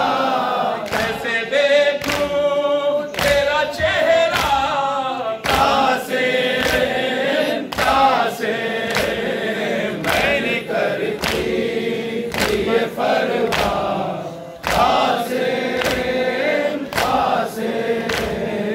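A nauha lament sung by men's voices, a lead reciter with the group joining in, over rhythmic chest-beating (matam) strikes about every three-quarters of a second.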